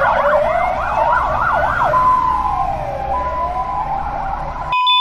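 Emergency vehicle sirens: a fast yelp for about the first two seconds over a slower rising and falling wail, then the wail alone, with low traffic rumble beneath. The sound cuts off suddenly just before the end.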